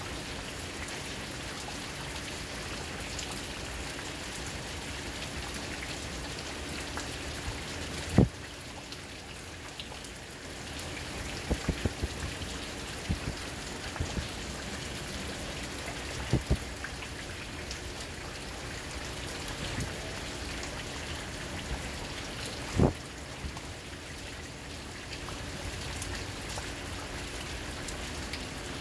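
Steady rain falling. Occasional sharp knocks come through it: a loud single one about eight seconds in, a quick cluster around twelve seconds, another near sixteen seconds, and a loud one about twenty-three seconds in.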